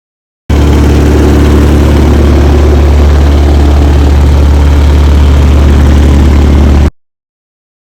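Vibratory tumbler running: a loud, steady low hum with a noisy wash above it, beginning and ending abruptly.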